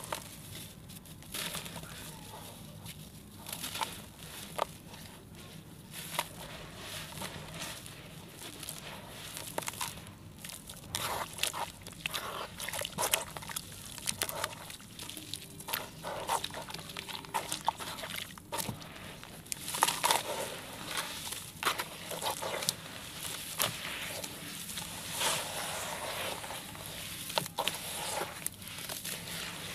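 Sand-cement chunks being crumbled and squeezed by hand in a basin of water, giving irregular crunching and crackling with wet squishing. It grows louder and busier in the second half.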